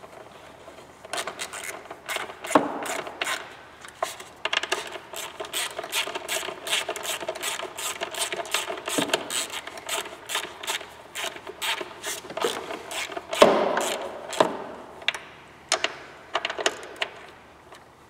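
Ratchet clicking in fast runs with short pauses as the two retainer bolts of an EVAP purge valve are driven down, with a louder knock about two-thirds of the way through.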